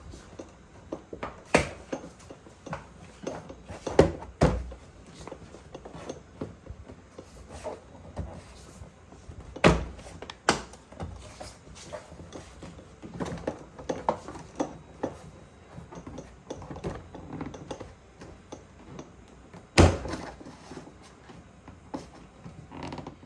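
Door-panel retaining clips on a Toyota Tacoma door being pressed home. There are about half a dozen sharp thunks and snaps spread out irregularly, the last of them about 20 seconds in, with quieter plastic handling noise between them.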